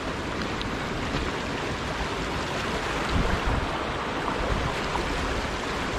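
Steady rush of a mountain creek's flowing water, with a few low bumps near the middle.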